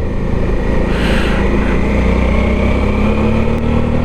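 Motorcycle engine running under way, its pitch rising slowly as it pulls. A short hiss comes about a second in.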